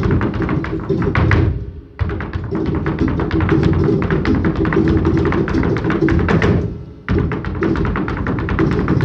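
Flamenco music with guitar and fast, dense percussive tapping. The sound briefly drops away twice, about two seconds in and again about seven seconds in, and each time starts again abruptly.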